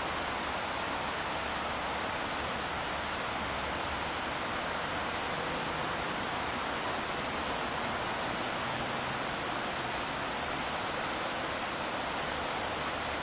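Steady rushing of river water pouring over falls and rapids, an even, unbroken roar with no splashes standing out.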